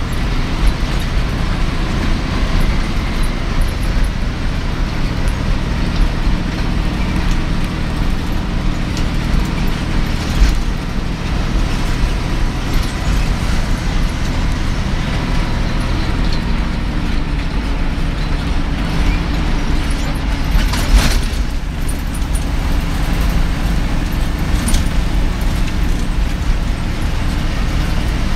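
A roadways bus's engine and road noise heard from inside the cabin as it drives: a steady low engine drone with tyre rumble. A short hiss cuts through about two-thirds of the way in.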